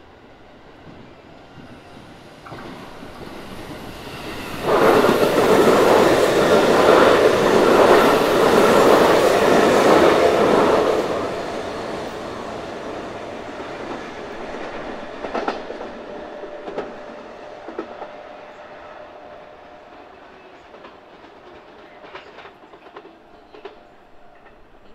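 Electric train running through the station. Its noise builds, jumps to full loudness about five seconds in, holds for about six seconds, then slowly fades, with a few sharp clicks as it goes.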